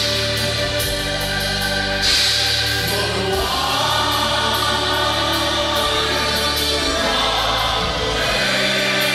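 Live rock band playing loudly: drums, electric guitars, bass and keyboards under sustained chords, with female and male vocals. A cymbal crash comes about two seconds in.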